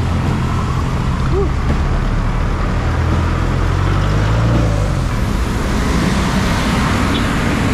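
Motor traffic on a drizzle-wet road: a steady engine hum rises slightly and drops away about halfway through, followed by a growing hiss of tyres on the wet pavement.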